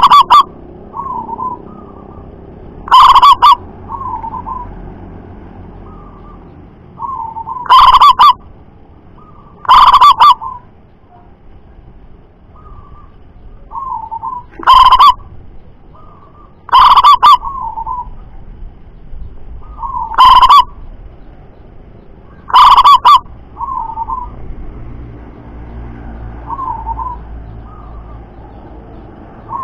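Zebra dove (perkutut) cooing its song: about eight very loud phrases, each about half a second long and a few seconds apart, with softer coos in between.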